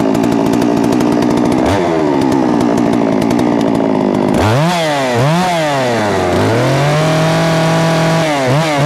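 Gas chainsaw engine running after a restart that follows flooding: it idles, gets a short blip of throttle, then from about halfway it is revved up and down several times, held at high revs for a second or so and revved again near the end.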